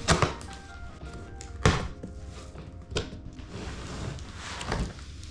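Four sharp knocks and thunks from PC parts being handled and fitted, over quiet background music.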